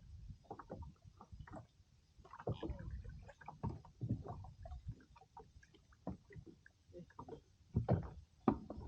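Irregular knocks and splashing of a fishing kayak on the water.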